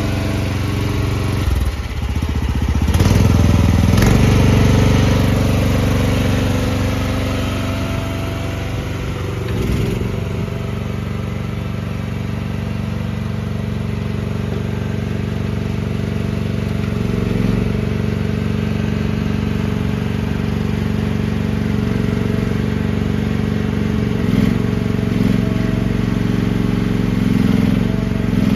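Small 13.5-horsepower gasoline engine of a mini excavator running. It revs up about two seconds in, then runs steadily, with a few brief changes in engine note later on.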